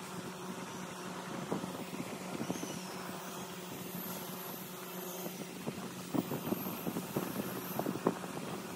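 Electric insect killer humming steadily, with several short clicks in the second half.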